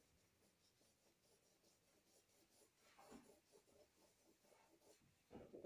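Faint scratching of a pencil sketching on a drawing surface: almost silent at first, then short strokes from about halfway, with a louder stroke near the end.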